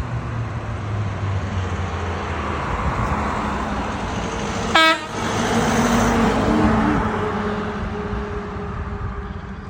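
A box truck driving past, its engine and road noise swelling and fading, with one very short beep of its horn a little under five seconds in.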